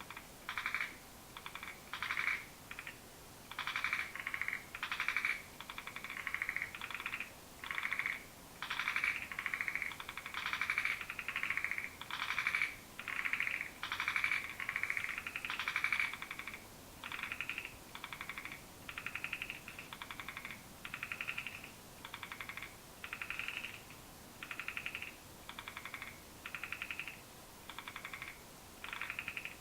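Ryukyu narrow-mouthed frogs (Microhyla okinavensis) calling: short buzzing rasps, each a rapid train of pulses, repeated about twice a second without pause and somewhat louder in the first half.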